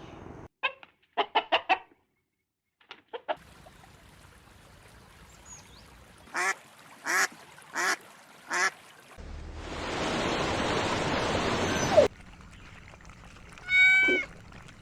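Waterfowl calling in a series of short pitched calls: a quick cluster, a pair, then four evenly spaced calls, with one longer call falling in pitch near the end. About nine to twelve seconds in there is a stretch of steady rushing noise.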